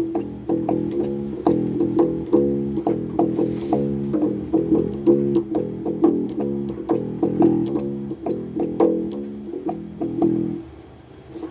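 Bass guitar played solo, a quick run of plucked notes one after another that stops about ten and a half seconds in.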